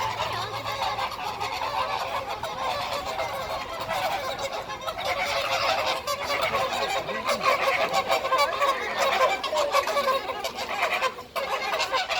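A flock of flamingos honking, many goose-like calls overlapping in a continuous noisy chatter.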